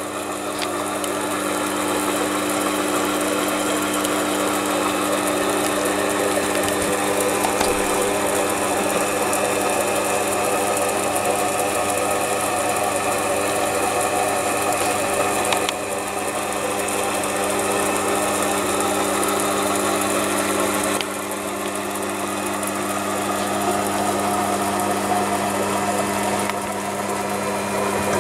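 Shop-made milling attachment on a Myford ML7 lathe running: its 200 W 220 V DC treadmill motor drives the spindle by belt with a steady hum and whine, while a 12 mm HSS three-flute end mill cuts a hard steel bar. The sound drops slightly in level twice, about halfway and two-thirds of the way through.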